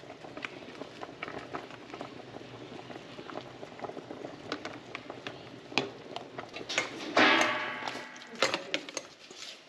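Water still bubbling in a stainless steel stockpot of pork ribs just taken off the heat, with light clicks of a metal spoon as the foam is skimmed off. About seven seconds in, a louder ringing scrape of metal against the pot.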